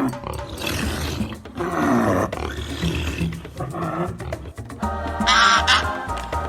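Rough animal roars or growls over background music, with a higher, clearer animal call starting near the end.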